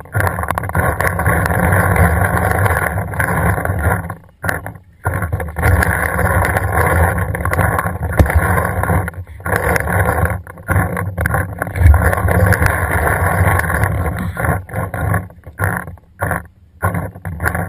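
Loud rushing rumble of wind buffeting an action camera's microphone, cutting out briefly several times.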